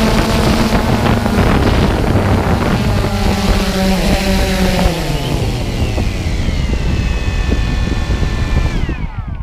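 DJI Phantom 2 quadcopter's electric motors and propellers buzzing close to the microphone, with wind noise. About halfway through, the pitch glides steadily down, and just before the end the sound dies away as the motors spin down.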